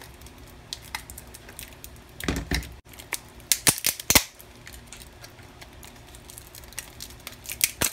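Plastic casing of a laptop battery pack cracking and snapping as it is pried off its 18650 cells by hand: scattered sharp clicks and cracks, bunched about two seconds in, around four seconds in and again near the end.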